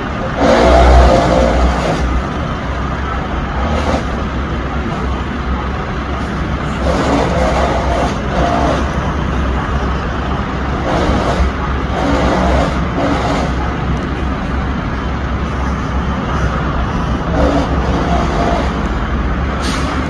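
Fire trucks' engines running with a steady low rumble, loudest about a second in.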